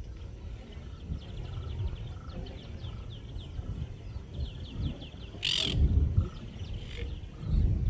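Birds calling: a quick run of short, high, falling chirps for the first few seconds, then one loud harsh call about five and a half seconds in, over a steady low rumble that swells near the end.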